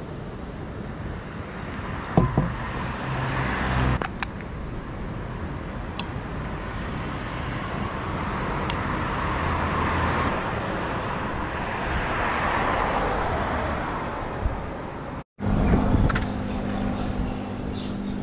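Cars passing on a road, their tyre and engine noise swelling and fading twice, with a few sharp clicks and knocks of gear being handled early on. Near the end the sound cuts abruptly to a steady low hum.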